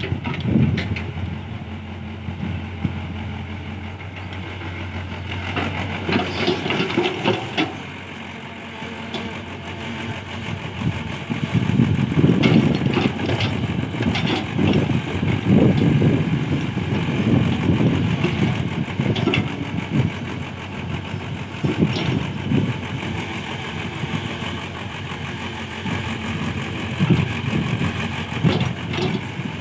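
Hyundai 80 SMART excavator's diesel engine running, steady at first, then swelling and easing again and again from about ten seconds in as it works, with occasional knocks.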